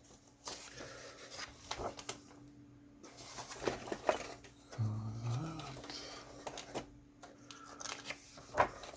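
Light rustling and scattered small clicks and taps as a book's pages and plastic miniature sprues are handled, with a brief low vocal sound about five seconds in.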